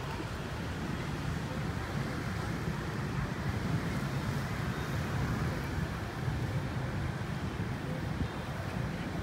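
Steady low rumble of city street traffic, an even outdoor noise with no single sound standing out.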